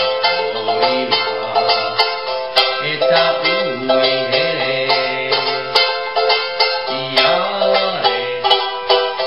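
Ukulele strummed in a steady rhythm, with a man singing along in a low voice.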